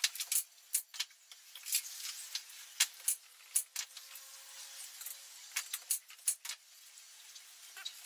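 Light, irregular wooden clicks and taps of small split-branch pieces being handled and knocked against each other as they are fitted to a bird house roof.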